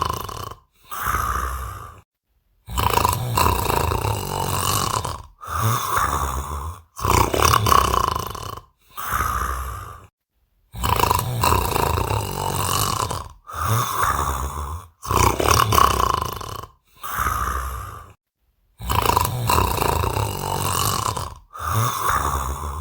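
A man snoring loudly: a run of harsh snores, each one to two seconds long, cut off abruptly by short silent gaps.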